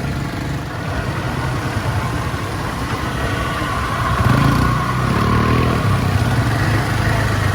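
ATV quad-bike engine running near idle, getting louder for a moment about four seconds in.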